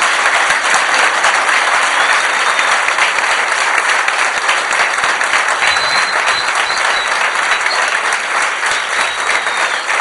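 A large crowd applauding, loud and steady throughout.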